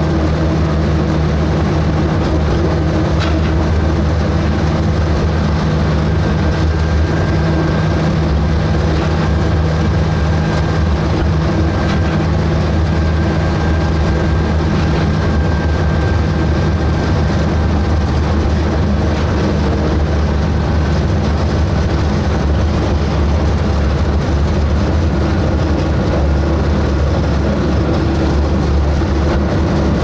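Engine of narrow-gauge forest railway locomotive No. 142 running steadily under way, a loud, even low hum heard from inside the cab.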